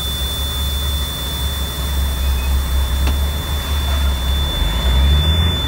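Semi truck's diesel engine running, heard from inside the cab, its note rising near the end as the truck pulls away.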